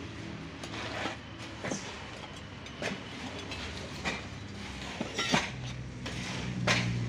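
Scattered sharp clinks and knocks, roughly one a second, over a low steady mechanical hum that grows louder near the end.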